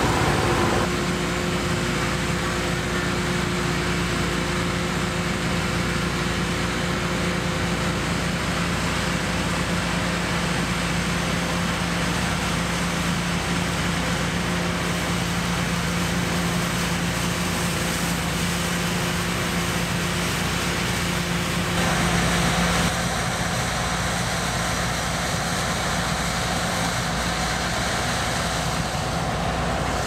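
Claas Lexion and Fendt combine harvesters at work harvesting rapeseed: a steady engine drone over a broad rushing noise. About two-thirds of the way through, the sound briefly grows louder and its tone shifts.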